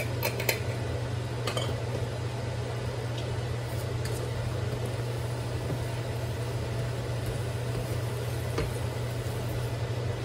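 Wooden spatula stirring and tossing beef and green beans in a hot wok. A few short clicks and scrapes come where it knocks the pan, over a steady low hum.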